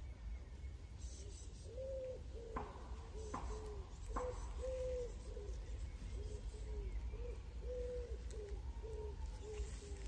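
Pigeon cooing: a long run of low, soft hooting notes, one after another, starting about two seconds in. A few sharp clicks fall among the early notes, over a steady low rumble.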